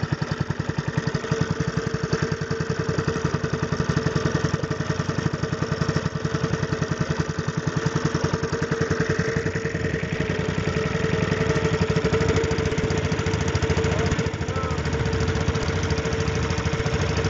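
Small single-cylinder boat engine with a recoil starter, running steadily with a fast, even beat and a steady hum.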